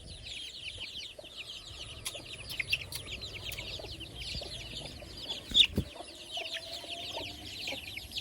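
A crowd of chicks peeping continuously, many short high falling peeps overlapping. A single sharp knock comes about five and a half seconds in.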